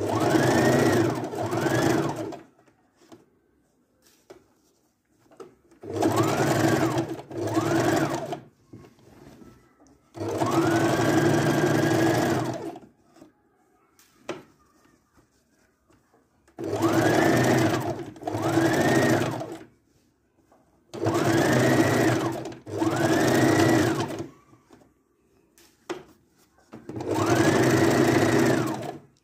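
Electric home sewing machine stitching a straight seam in stop-and-go runs: about ten short bursts, often in pairs, each opening with a rising motor whine that levels off, with short quiet gaps between them.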